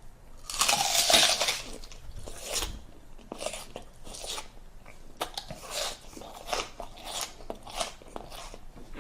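A person biting into and chewing raw red onion close to the microphone. There is one loud bite about a second in, then a run of wet crunches, roughly one to two a second.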